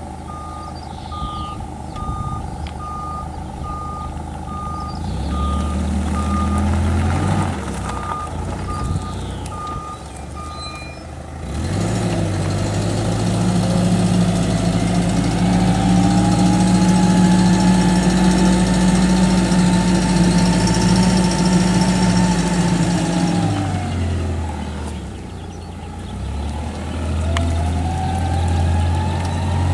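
Hyster H1.8FT LPG forklift reversing, its back-up alarm beeping steadily for about the first ten seconds over the engine running at low speed. Then the engine speeds up and holds a steady drone as the truck drives forward, eases off briefly, and picks up again near the end.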